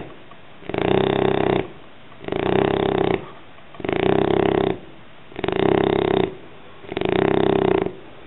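Shar-Pei dog snoring in a steady rhythm: five long snores, one about every second and a half, with a quieter breath between each.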